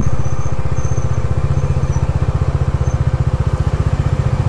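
Bajaj Dominar motorcycle's single-cylinder engine running steadily under way, with an even, rapid pulse.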